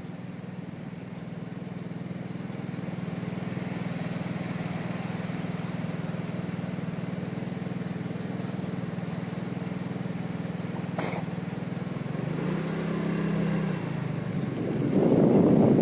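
Car engine idling with a steady low hum. Its note rises briefly about twelve seconds in, after a sharp click. A loud rushing noise, like wind on the microphone, comes in near the end.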